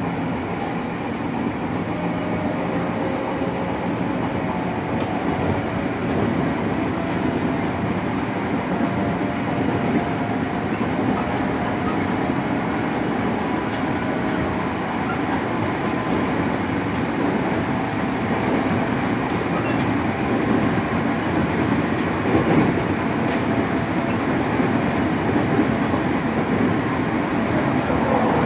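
Running sound inside a JR 205 series electric multiple unit motor car at speed: a steady rumble of wheels on rail with a faint traction-motor whine, and a few light clicks.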